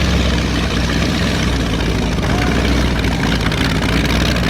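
Speedboat engine running steadily, a loud even drone with a low hum that does not change in pitch.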